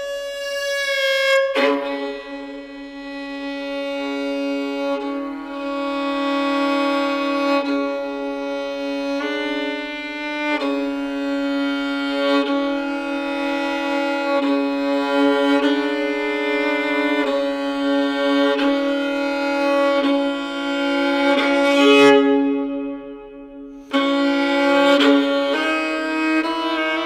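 Solo violin in scordatura tuning, bowed double stops: a held low drone note under upper notes that change about every second and a half. The playing drops briefly quieter a few seconds before the end, then comes back in full.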